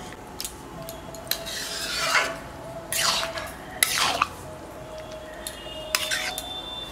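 Stirring and scraping a dish of chicken tadka in a cooking pan: three longer scrapes about two, three and four seconds in, with light clinks of the utensil against the pan between them.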